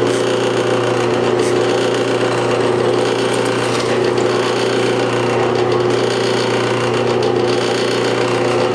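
Benchtop drill press running steadily, its motor humming while the bit is fed down into a wooden workpiece to drill holes.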